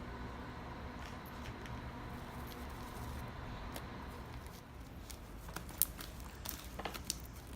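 Hands kneading sticky homemade slime: soft squishing, with sharper sticky clicks and small pops in the second half.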